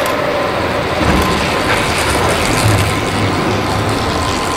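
Track bicycle rushing past on the velodrome boards at the end of a 500 m sprint: a mechanical whir of chain and tyres over a low rumble that swells about a second in and lasts about three seconds.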